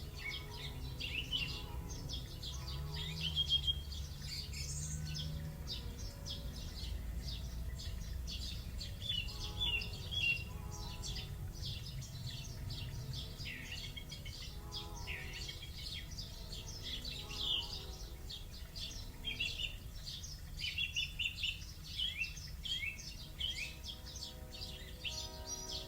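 Recorded dawn chorus of many songbirds chirping and trilling, played by an Alexa ambient-sound skill through a smart speaker, over a steady low rumble.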